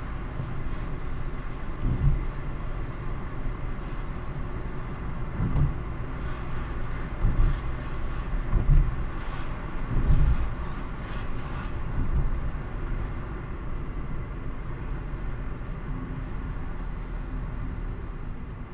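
Car driving through town, heard inside the cabin: steady engine and tyre rumble with several low thumps between about two and ten seconds in. It grows a little quieter as the car slows near the end.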